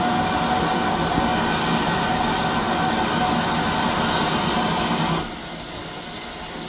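Steam whistle of Lambton tank engine No. 29, a 1904 Kitson-built 0-6-2T, blown in one long steady blast that cuts off sharply about five seconds in. It is the departure whistle, given before the train moves off.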